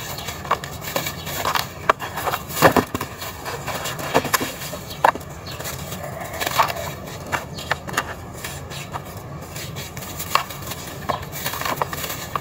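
Dry red dirt clods crumbling and crunching between the fingers, with loose soil trickling and falling into a plastic tub. Scattered sharp crackles and small knocks run throughout, the loudest a little under three seconds in.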